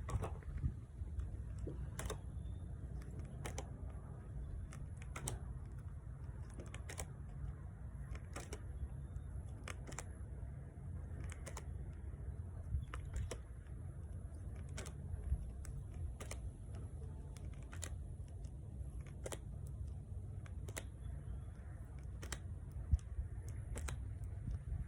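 Letter flashcards being flipped one after another, a short click about every second and a half, over a steady low rumble.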